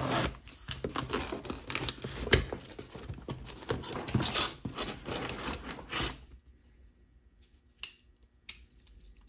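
Packing tape on a cardboard shipping box being slit and torn, then the cardboard flaps scraped and pulled open: a busy run of scratching and rustling that stops about six seconds in, followed by two sharp clicks.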